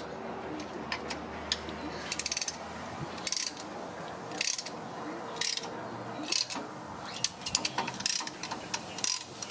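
Metal clicks and clinks of a hand tool working a rear disc-brake caliper as it is spread to push the single piston back, with a fast run of clicks about two seconds in. A steady low hum runs underneath.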